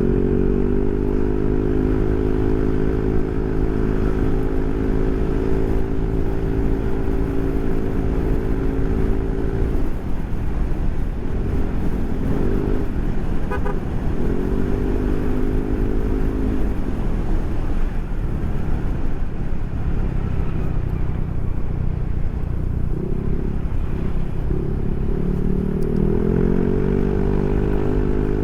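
Yamaha NMAX scooter's single-cylinder engine through a Proliner SR Neo Silent aftermarket exhaust, heard while riding. It climbs in pitch as the scooter accelerates, holds steady at cruise, and drops away as the throttle is eased about ten seconds in and again later, picking up twice more.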